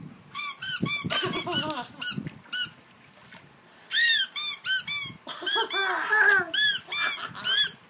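Squeaky toy being squeezed over and over in quick runs, each squeak a short note that rises and falls in pitch. There is a pause of about a second near three seconds in, then a second run.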